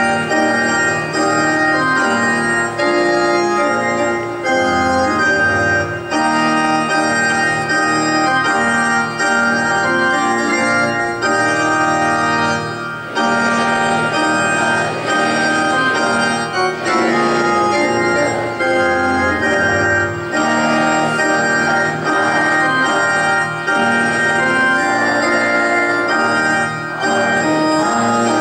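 Electronic organ playing the school song in held chords that change every second or so.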